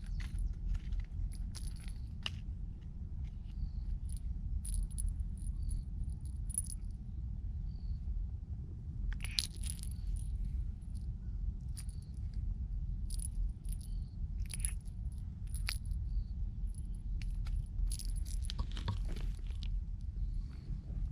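Irregular light metallic jingles and clicks, coming in scattered clusters over a steady low rumble.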